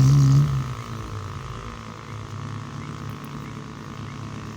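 Off-road vehicle engine running steadily at low revs, louder and rising in pitch for the first half-second before settling.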